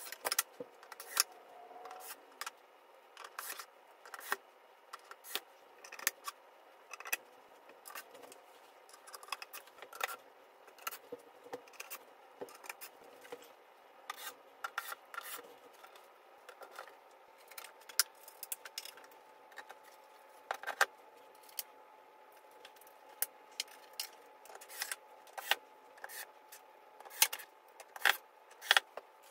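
Flat-pack furniture assembly: particleboard panels and hardware being handled, with many sharp clicks, taps and knocks at irregular intervals, and rubbing and scraping between them.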